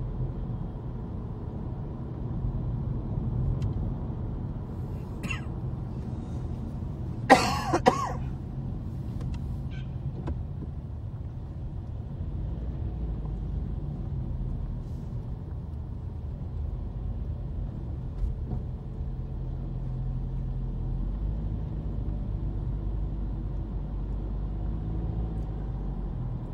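Steady engine and tyre rumble heard from inside a moving car. About seven seconds in, a brief loud burst stands out above it.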